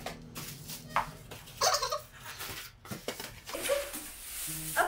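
Plastic bag and styrofoam packing rustling and scraping in irregular bursts as a rice cooker is lifted out of its cardboard box.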